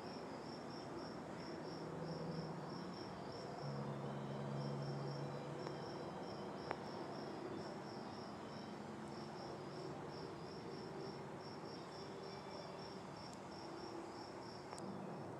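Crickets chirping in a steady, even rhythm of high-pitched chirps, about three a second. A faint low hum rises and fades in the background.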